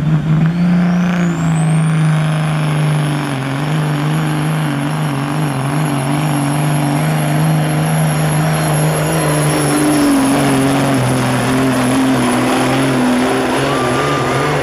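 Semi truck's diesel engine running flat out under heavy load while pulling a weight-transfer sled. A high turbocharger whine rises over the first two seconds and then holds steady above the engine note. The engine note drops a little about ten seconds in as the load builds.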